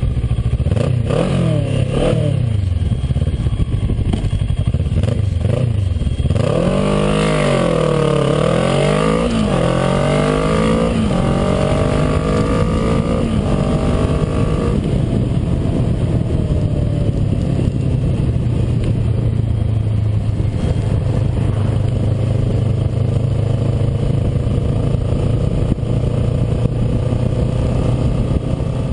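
Kawasaki ER-6N 649cc parallel-twin engine, first revving in short blips while stationary. About six seconds in it launches hard, its note climbing and then dropping at each of several quick upshifts. It then settles into a steady, slowly rising drone at road speed.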